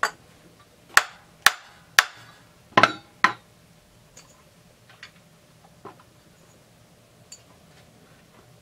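Six sharp hammer blows in about three and a half seconds, then a few faint clicks and taps: knocking the flywheel of a Husqvarna 350 chainsaw loose.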